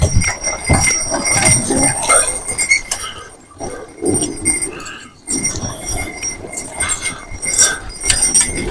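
A two-horse team walking on packed snow and pulling a wagon on airless tyres: irregular clatter and rattle of the wagon and pole, with clinking harness hardware and hoof crunches, easing off briefly twice in the middle.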